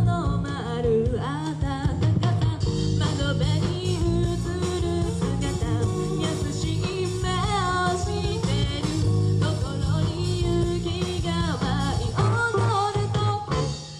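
Live rock band playing with a singer: guitar, bass and drums under a sung melody, heard through the theater's sound system. The music breaks off briefly at the very end.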